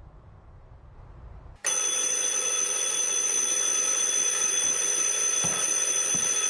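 Alarm clock ringing: it starts suddenly about a second and a half in and keeps ringing loud and steady.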